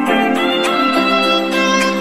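Instrumental background music: a melody of held notes, changing about every half second to second, over a steady low drone.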